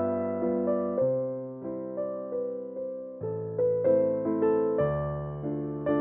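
Background music played on piano or electric piano: a gentle melody of plucked-sounding notes over a changing bass line, each note struck and fading.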